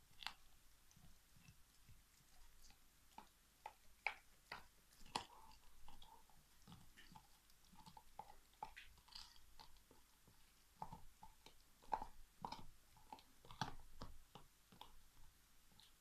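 Alaskan Malamute gnawing a big turkey bone: faint, irregular cracks and clicks of teeth on bone, coming in clusters.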